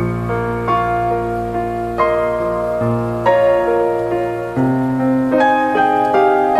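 Slow piano music: a melody of single struck notes over held low bass notes that change every couple of seconds.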